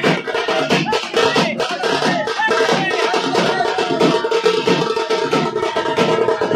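Music with fast, dense drumming over a steady held note.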